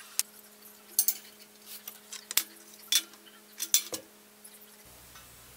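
Scattered sharp metallic clinks and ticks of steel tubing and tools being handled on a welding-clamped frame, about half a dozen spread out, over a faint steady hum that stops near the end.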